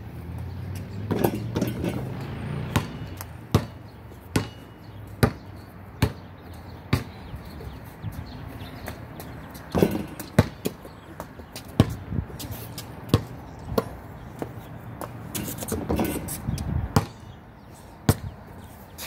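Basketball being dribbled, a sharp bounce a little under a second apart, with a few gaps between runs of bounces.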